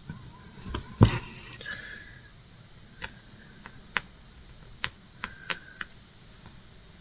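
Scattered light clicks and taps, with one louder knock about a second in and a handful of small ticks a few seconds later.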